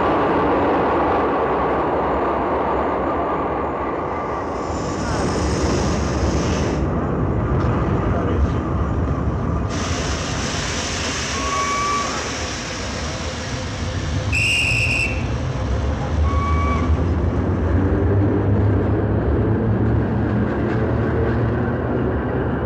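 Paris Métro train running, a steady rumble of wheels and motors. There are several brief high-pitched squeals about halfway through, and the low rumble grows heavier over the last few seconds.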